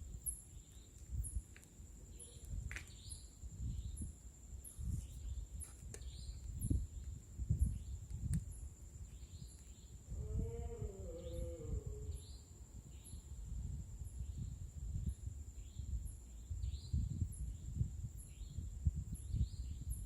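Ambience of repeated high chirping calls, about one to two a second, over a steady high whine and low rumbling noise. About ten seconds in comes a single wavering, pitched animal call lasting a couple of seconds.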